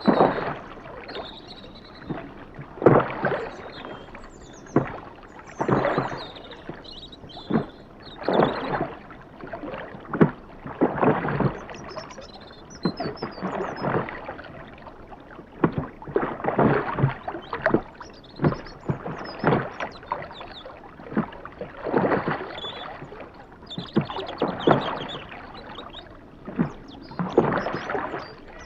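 Oars of a rowing boat pulling through canal water in a steady rhythm, a splashing swell about every two and a half to three seconds, with short sharp knocks in between.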